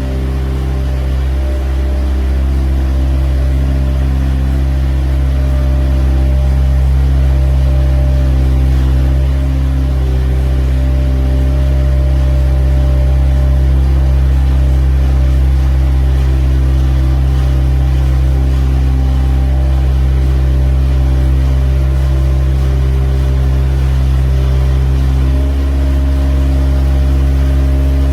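A machine's motor running steadily with a loud, deep, even hum, easing slightly near the end.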